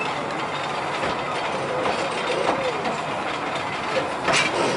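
Talyllyn Railway narrow-gauge steam train running along the line: steady running noise from the wheels on the track, with a sharp click near the end.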